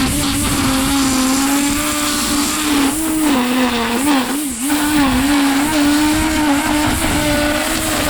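Small petrol engine of a garden power tool running hard and steady, its pitch wavering and dipping briefly about halfway through as it takes on load.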